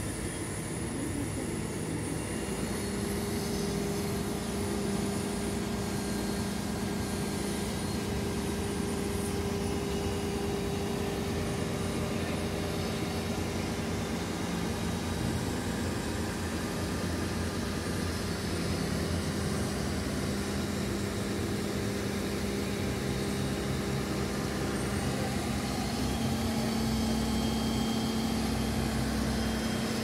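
Mobile crane's diesel engine running steadily with an even hum while it lifts a precast concrete bridge girder; the engine speeds up slightly near the end.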